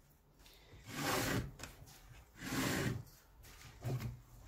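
Waxed artificial sinew drawn through the leather of a scabbard during hand whip-stitching, giving three drawn-out rubbing swishes about a second and a half apart.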